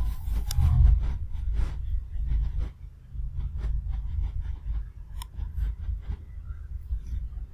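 Low steady rumble with scattered light clicks and rubbing, typical of fingers working a laptop touchpad and keys close to its built-in microphone.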